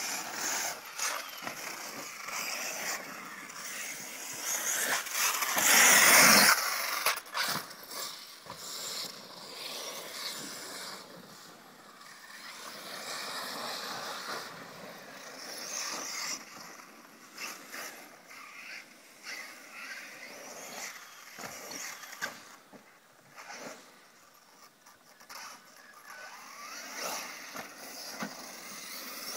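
Radio-controlled cars running on a dirt track: motors and tyres on loose dirt rise and fall in level as the cars come and go. The loudest pass is about six seconds in.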